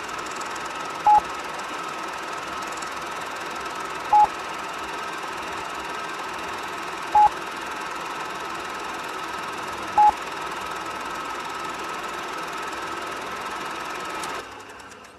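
Electronic intro of a slowed, bass-boosted song: a steady buzzing hum with a held tone, and four short loud beeps about three seconds apart, like a telephone tone. The whole thing fades out near the end.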